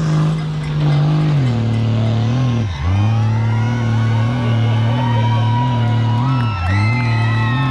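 Diesel pickup truck engine working hard under heavy load as it tows a loaded trailer through deep sand. The engine note holds steady but wavers in regular dips, bogging sharply about three seconds in and again near the end.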